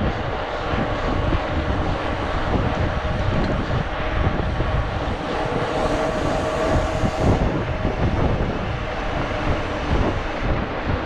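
Steady rushing noise of wind buffeting a handlebar-mounted camera's microphone on a moving mountain bike, mixed with tyre hum on asphalt.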